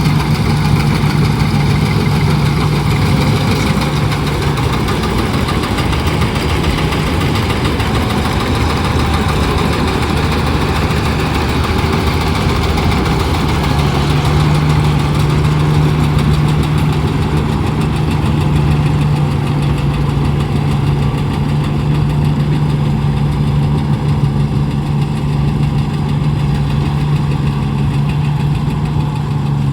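Engine of a rice harvesting machine running steadily, a continuous low drone whose main tone weakens for a stretch and returns strong about fourteen seconds in.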